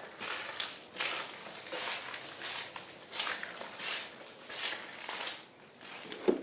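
Footsteps on a wet, gritty path, one step about every two-thirds of a second, with a sharper knock near the end.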